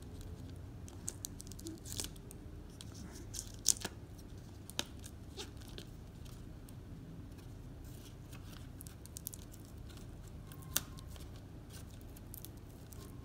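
Packaging being opened by hand: paper and plastic tearing and crinkling, with scattered sharp clicks, the loudest a little under four seconds in.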